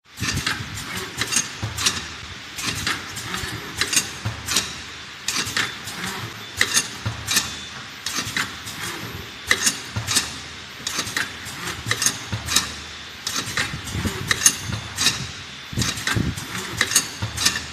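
Automatic bottle screw-capping machine running: a continuous mechanical hum with a faint steady high whine, broken by frequent sharp clicks and knocks, several a second and uneven, as bottles and caps move through and are screwed down.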